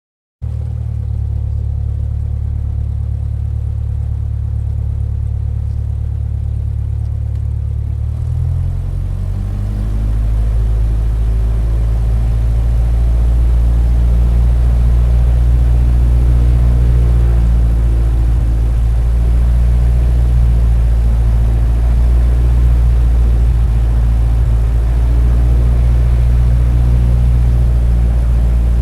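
Toy plane's motor running with a steady low hum, then about eight seconds in its pitch shifts and it gets louder as it takes off, and it keeps running steadily.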